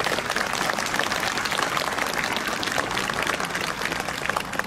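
Crowd applauding: a dense, steady patter of many hands clapping, welcoming the speaker as he waves from the lectern.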